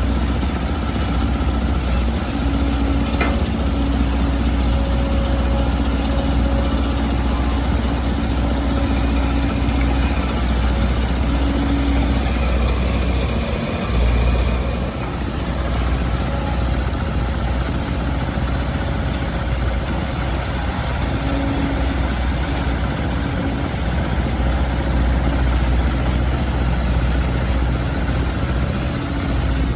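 Volvo EC200D excavator's diesel engine running steadily as the machine works, with a low hum and tones that come and go; a brief surge then a short drop about halfway through.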